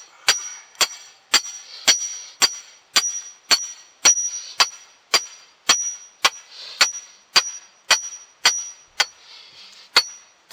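Iron loom stake being hammered into the ground: sharp metallic clangs, each ringing briefly, about two strikes a second, with a short pause near the end.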